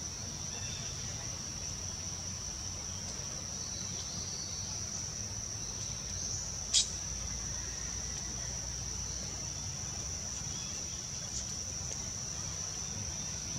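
Steady, high-pitched drone of insects in the forest, with a single sharp click about halfway through.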